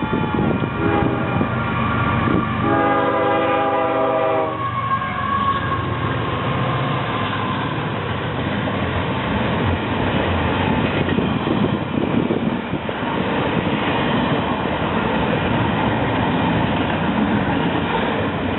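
Train horn sounding a chord, a short blast and then a longer one of about two seconds, followed by the steady rumble and clickety-clack of the train passing close by.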